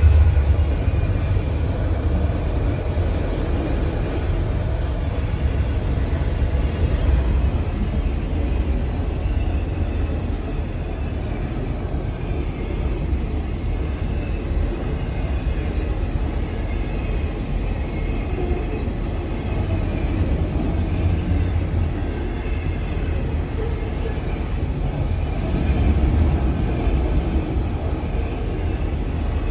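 Freight train of enclosed autorack cars rolling past a level crossing at speed: a steady, continuous rumble of wheels on rails, heard from inside a car's cabin.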